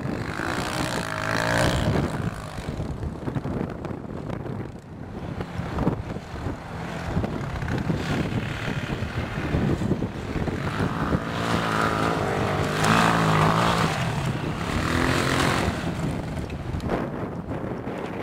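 Engine of a 250 cc Bashan quad bike (ATV) revving hard as it climbs through loose sand. The revs rise and fall, loudest about a second in and again from about twelve to sixteen seconds.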